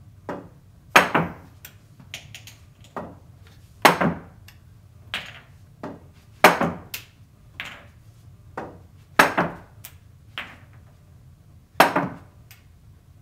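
Pool balls clacking: the cue tip striking the cue ball, then balls knocking together and thudding off the rails. Five or six shots, each a cluster of two or three sharp knocks, about every two and a half seconds.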